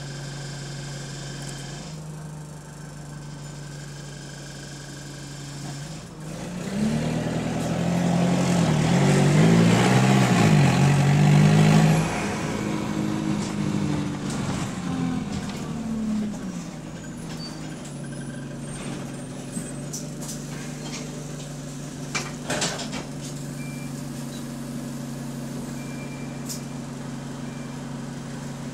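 Bus diesel engine with a burst exhaust, heard from inside the saloon: running steadily, then growing loud about six seconds in as the bus pulls away, its note changing through the gears until about twelve seconds, before dropping back to a steady run. A few short clicks come later on.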